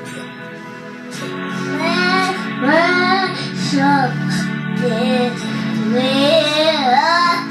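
A child singing along with recorded worship music that has guitar backing. The voice comes in about two seconds in and slides between notes.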